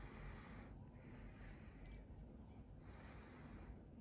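Faint, slow breathing close to the microphone: soft breaths of about a second each, roughly one every two seconds, over a low room rumble.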